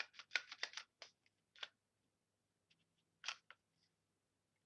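Plastic reacher grabber's rotating jaw clicking as it is turned through its positions: a quick run of sharp clicks in the first second, a single click, then a few more about three seconds in.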